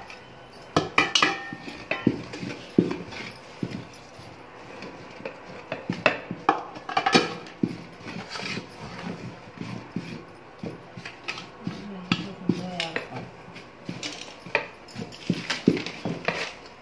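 A wooden pestle pounding a dry sesame, jaggery and flour mix in an aluminium pot: irregular knocks and clinks against the metal.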